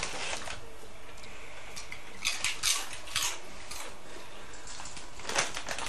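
A dog crunching crisps: a few short bouts of dry crackling chewing, near the start, in the middle and near the end.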